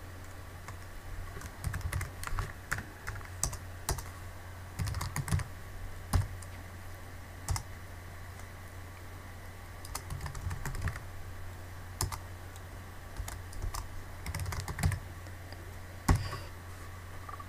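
Computer keyboard typing in irregular bursts of keystrokes, with pauses between them, over a steady low hum.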